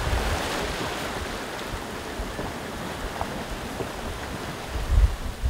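Rushing sea waves around a sailing yacht under way in a rough swell, with wind buffeting the microphone. The buffeting is loudest about five seconds in.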